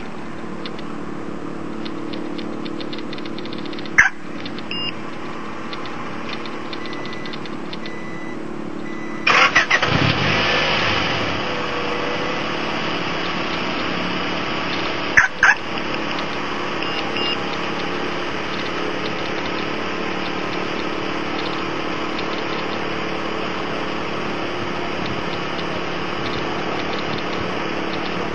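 Car engine started by a remote starter: it cranks briefly about nine seconds in, catches, revs up and settles into a steady idle. Sharp clicks with short chirps come about four seconds in and again about fifteen seconds in, typical of the alarm system and its remote.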